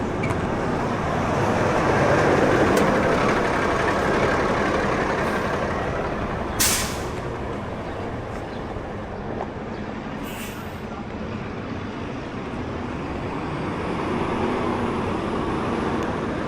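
Street traffic noise heard while riding, swelling for a few seconds as a heavy vehicle passes, with one short, sharp hiss about six and a half seconds in and a fainter one near ten seconds.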